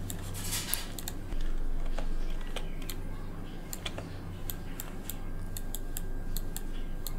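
Computer mouse and keyboard clicks: a dozen or so sharp, irregular clicks, coming more often in the second half, over a steady low electrical hum, with a brief hiss about half a second in.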